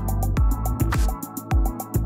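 Electronic background music with a steady beat: punchy kick drums, fast even hi-hat ticks and a sustained synth bass.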